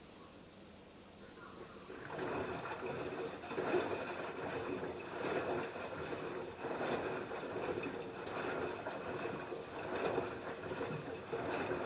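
LG F10B8QD1 front-loading washing machine tumbling its wash: water and laundry slosh in the turning drum in surges about every one and a half seconds. The sloshing starts about two seconds in and stops at the very end, with only a low motor hum before it.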